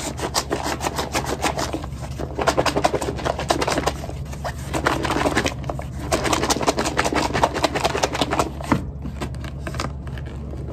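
A kale Caesar salad being shaken hard in its closed takeout bowl to toss it: fast rattling and shuffling of leaves and chicken against the container. It comes in four bursts with short pauses and stops about nine seconds in.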